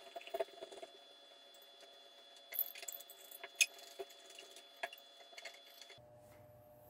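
Faint scrubbing and small scattered clicks of a swab rubbing old thermal paste off a graphics card heatsink's copper contact plate, with light metallic clinks as the heatsink is handled.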